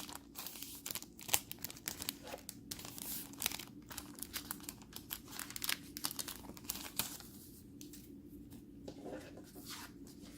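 Packaging crinkling and rustling as it is handled and pulled open by hand, in dense crackles that thin out near the end.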